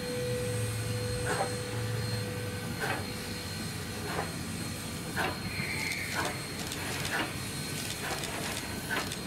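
Baldwin S160 2-8-0 steam locomotive working off, its exhaust chuffs coming about a second apart and slowly quickening over a steady hiss of steam. A whistle tone dies away at the start, and a brief squeal comes about halfway through.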